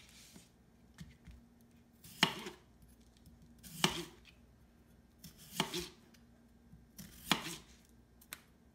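Chef's knife slicing thin rounds from a red potato on a plastic cutting board: four separate cuts, each a sharp stroke of the blade through to the board, about one every second and a half to two seconds, with a couple of faint clicks between.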